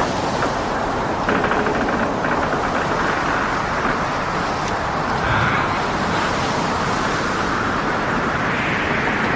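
Storm at sea: a dense, continuous rush of wind and water that swells and eases every few seconds, with a brief patch of fine rapid pattering early on.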